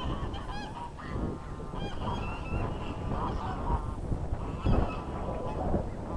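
Canada geese honking, several short calls in a row from a flock close by.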